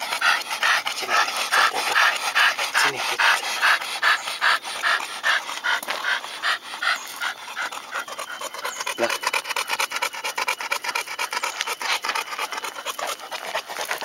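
Pit bull–type dog panting hard and fast, about three breaths a second, most regular over the first eight seconds, with short clicks and scuffs throughout.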